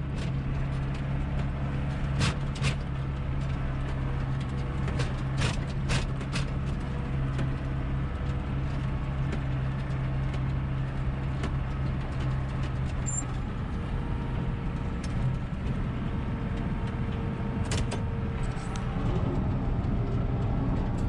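Farm tractor engine running steadily while moving a round bale feeder, with a few sharp metallic clanks in the first several seconds and another near the end.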